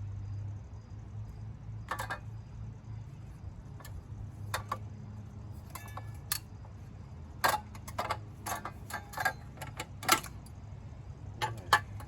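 Irregular sharp metallic clicks and clinks of hand tools and small engine parts being handled during engine teardown, more of them in the second half, over a steady low hum.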